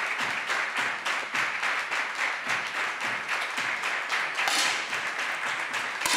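Spectator crowd applauding with steady, dense clapping, and a single sharp click near the end.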